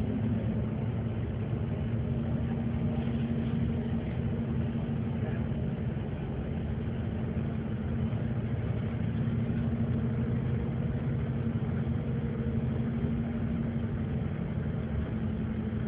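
Engine and tyre noise of a moving road vehicle, heard from on board: a steady low drone with a constant hum, running evenly without changes in speed.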